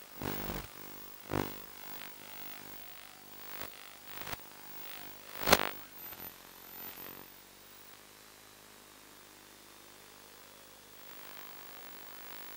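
Steady electrical hum on the audio of an analogue FPV video link, broken in the first half by several short noisy bursts, the loudest about five and a half seconds in. From about seven seconds in only the hum and a faint hiss remain.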